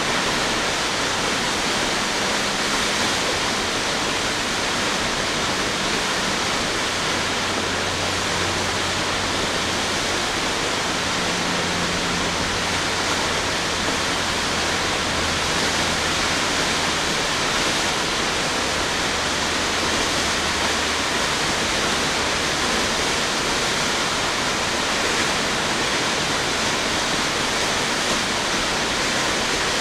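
A tall waterfall, South Falls (177 ft), pouring steadily: a dense, even rushing of falling water.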